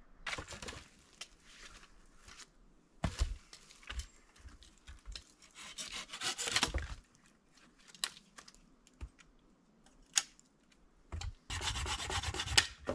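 Dry dead branches being cut into sections by hand: several stretches of rasping wood strokes, with a few single sharp cracks between them. The longest and loudest stretch comes near the end.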